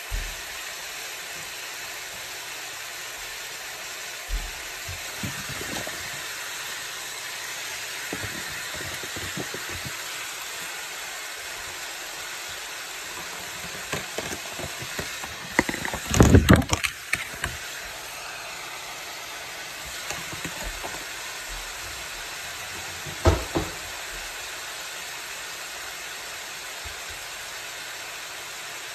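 Ground meat sizzling in a frying pan, a steady hiss, as sliced peppers and onions are dropped on top. A burst of clatter about halfway through and a single knock later on come from the vegetables and utensils hitting the pan.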